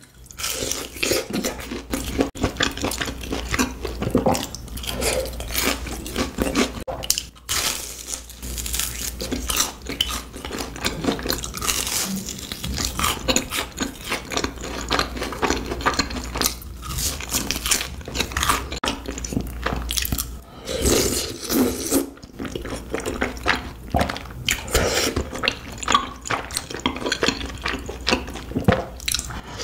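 A person chewing and crunching fried snacks dipped in tteokbokki sauce, with uneven crackling bites throughout.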